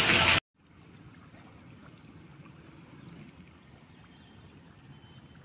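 Heavy rain for the first half second, cut off suddenly. Then faint, steady running water: shallow rainwater flowing across sandy ground.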